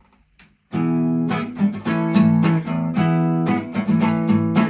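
Acoustic guitar strumming a song's opening chords, starting suddenly a little under a second in after a short near-quiet pause, with rhythmic strums.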